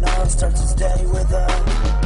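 Hip-hop backing music with a heavy bass beat and a rapped vocal over it.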